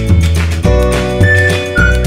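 Background music with a repeating bass line and a high held melody that comes in about a second in and steps down in pitch.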